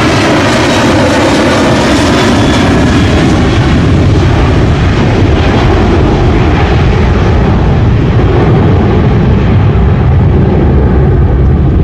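Jet engines of a Boeing airliner at takeoff power during the takeoff roll and climb-out: a loud, steady rush of engine noise.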